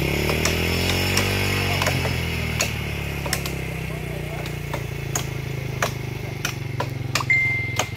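A small petrol engine starting up and then running at a steady idle, its speed dipping briefly about a second in. Sharp clicks sound every second or so, and a brief high whistle comes near the end.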